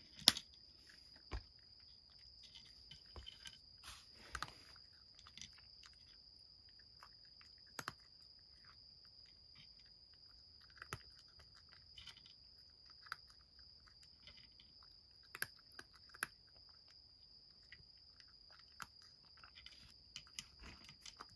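A cat chewing and crunching dry kibble from a wooden dish: faint, irregular crunches and small clicks, the sharpest just after the start. A faint steady high whine runs underneath.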